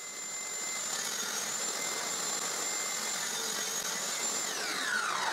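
Table saw running with a steady high whine as its blade cuts a mitre through a pine board on a miter sled; the pitch dips briefly under load. Near the end the saw is switched off and the blade winds down, its whine falling steadily in pitch.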